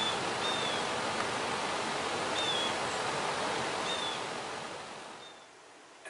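Steady rushing outdoor noise with a small bird giving short high chirps, four or five of them, spread a second or two apart; the whole sound fades out near the end.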